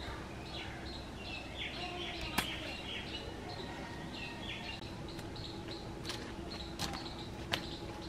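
Small birds chirping repeatedly in the background. About two seconds in there is a sharp snap as a hand sickle cuts through a Malabar spinach stem, and a few fainter clicks follow near the end.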